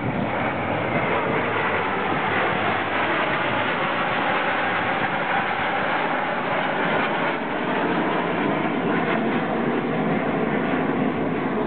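Jet engines of a formation of TS-11 Iskra jet trainers flying past overhead: a steady, even rushing noise with no let-up.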